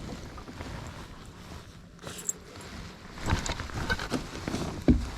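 Knocks, clicks and handling noise aboard a small fishing boat, with a cluster of sharp knocks a little past three seconds in and a single sharp thump near the end.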